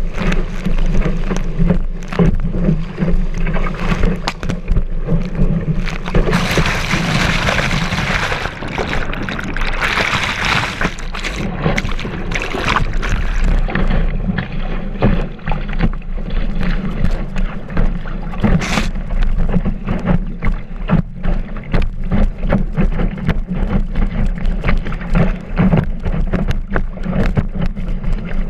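Kiteboard planing across choppy water, heard from a camera mounted on the board: rushing water and spray against the hull with many short slaps as it hits chop, over a steady wind rumble on the microphone. The spray hiss grows louder for a few seconds about a quarter of the way in.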